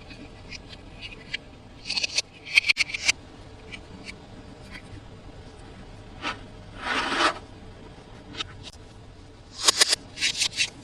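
Toy packaging being handled and opened: scattered sharp crinkles, clicks and scrapes of plastic and cardboard, with a short rubbing scrape about seven seconds in and clusters of crackling about two seconds in and near the end.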